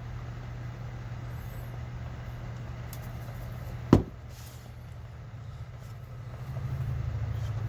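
Steady low hum of background noise, with one sharp knock about four seconds in. The hum grows louder near the end.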